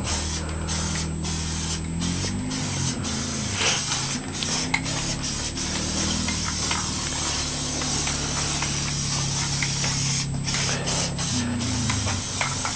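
Aerosol spray can of enamel paint hissing as it sprays, with several brief breaks where the nozzle is let off, over a steady low hum.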